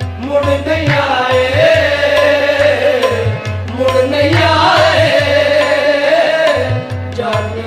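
Background music: a song with a voice singing a wavering melody over a hand-drum beat.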